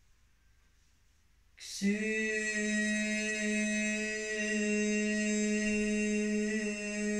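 A voice starts a long chanted tone about a second and a half in and holds it on one steady pitch.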